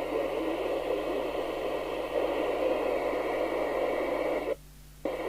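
FM CB receiver static: a steady hiss from a Rotel RVC240 base station's loudspeaker. It cuts off sharply about four and a half seconds in, then comes back briefly near the end.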